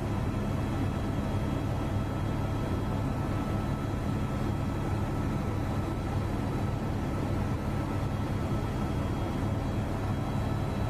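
Steady engine drone of an aircraft in flight, heard from on board: a constant low hum with a few faint steady tones above it.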